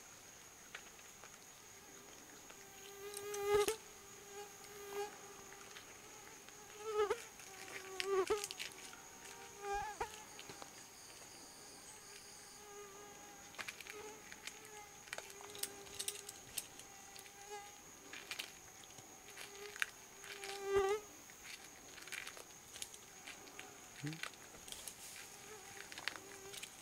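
A flying insect buzzing close by, swelling loud several times as it passes and fading between, over a steady high whine. Scattered small clicks and cracks come from an ocelot biting little pieces off an eggshell.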